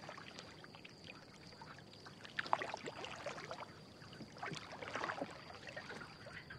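Faint water sloshing and lapping around a rowboat, with a few soft splashes.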